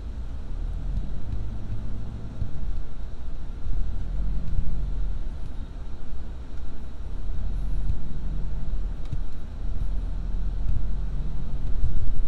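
Low engine and road rumble heard inside the cabin of a moving car, rising and falling a little as it drives.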